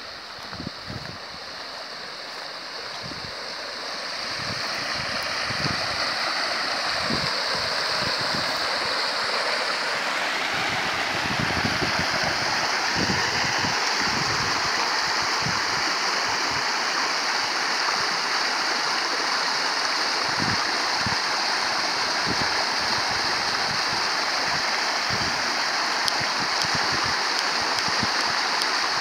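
Water rushing from an untreated sewage outfall as it pours into a stream, a steady rush that swells over the first few seconds and then holds.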